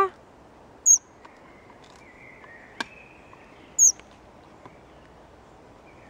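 Fledgling flycatcher giving short, very high-pitched begging calls, twice about three seconds apart.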